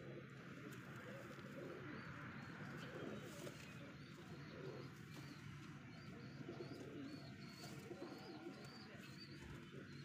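Domestic pigeons cooing faintly. From a few seconds in, a run of thin high chirps repeats about twice a second.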